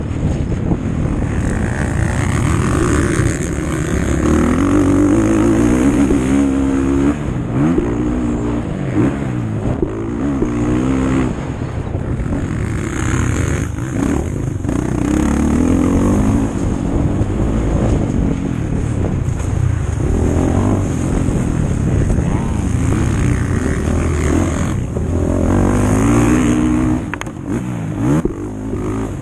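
Motocross bike engine at race pace, its pitch climbing and dropping back again and again as the rider revs through the gears and rolls off the throttle.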